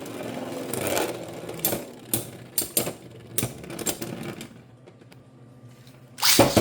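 Beyblade X spinning tops clashing and rattling in a plastic stadium: a run of sharp clacks and knocks, easing off near the end, followed by one loud sudden burst.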